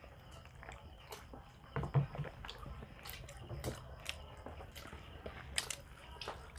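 Eating sounds: scattered short crunches and clicks of people biting and chewing, with a louder dull thump about two seconds in.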